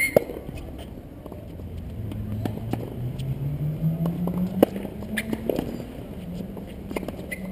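Tennis racket striking the ball: a sharp pock just after the start, and another about four and a half seconds in as a serve is hit. Under them a motor vehicle's engine speeds up, its hum rising steadily in pitch and then holding.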